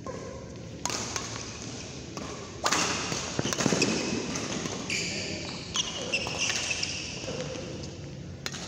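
Badminton doubles rally: rackets striking the shuttlecock, with players' footsteps and shoe squeaks on the court mat, the sharpest hits a little after the middle.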